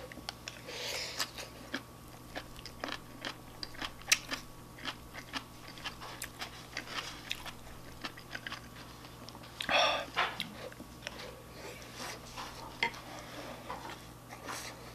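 A person chewing a mouthful of shrimp fried rice close to the microphone: soft wet mouth clicks and smacks throughout. There is one sharper click about four seconds in, and a short louder burst of noise near ten seconds.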